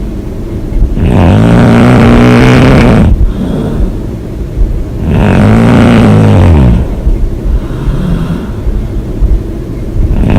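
A woman snoring loudly: two long snores with a wavering pitch, about four seconds apart, with quieter breathing between them and the next snore starting near the end.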